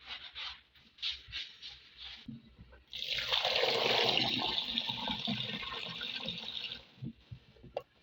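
Water running from a kitchen tap into the sink for about four seconds, starting about three seconds in and stopping shortly before the end. A few light clicks and rustles come before it, and some short knocks follow.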